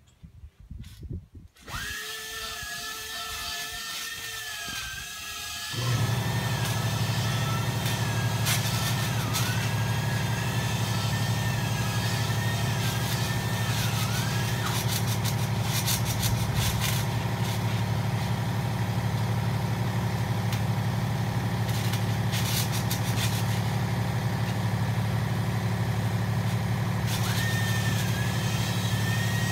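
A motor running steadily. A wavering high whine comes in about two seconds in, and about six seconds in a much louder, steady low hum starts and holds.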